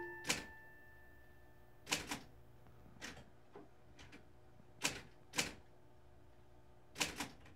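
Typewriter keys struck one at a time: about a dozen slow, irregular clacks with pauses between them.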